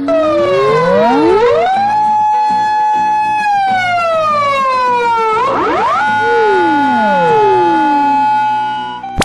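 Emergency vehicle sirens wailing, more than one at once. The pitch rises to a held note, holds for a second or two, slides down, then sweeps back up again. It cuts off near the end.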